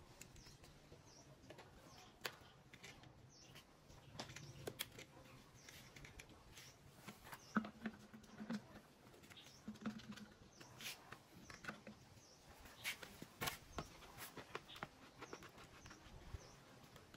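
Faint scattered clicks and taps of PVC pipe fittings and plastic bottle feeders being handled and fitted together, with faint bird chirps in the background.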